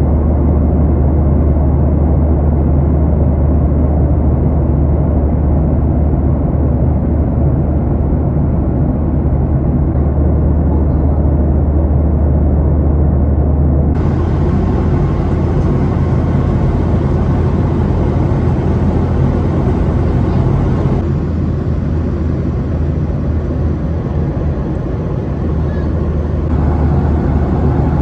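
Steady cabin drone of a Boeing 737-800 in flight: engine and airflow noise, heaviest in the low end. Its character changes about halfway through.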